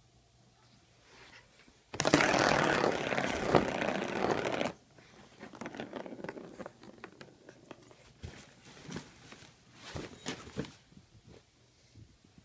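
Kittens at play: a loud, dense rustling scrape for about three seconds, starting about two seconds in and stopping abruptly, followed by scattered softer scratches and taps.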